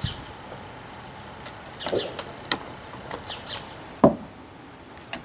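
Raw cow marrow bone knocking and scraping on wooden deck boards as a Siberian husky mouths it, picks it up and drops it: a few sharp knocks, with the loudest heavy thump about four seconds in. Birds chirp faintly in the background.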